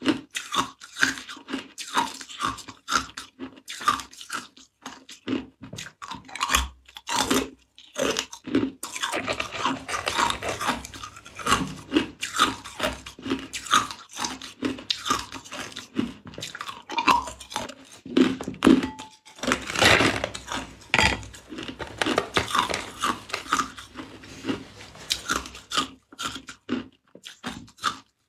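Hard ice cubes crunched and chewed between the teeth: a dense, uneven run of sharp cracks and crunches as the ice breaks up, with a couple of short pauses.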